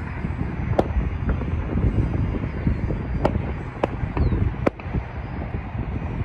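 Wind buffeting the microphone, with the faint, steady whine of the electric motor and propeller of a Great Planes Electrifly SU-31 RC aerobatic plane (Rimfire .10 brushless motor) flying at a distance. A few sharp clicks cut through.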